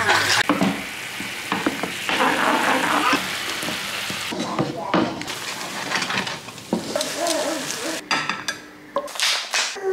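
Tomato sauce sizzling in a frying pan, with scattered knocks and scrapes of a wooden spoon against the pan.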